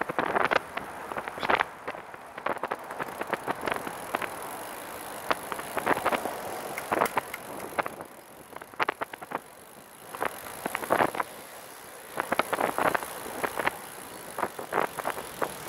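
Catrike 700 recumbent trike rolling along a paved road: irregular short clatters and rattles from the trike over the pavement, over a steady high hiss.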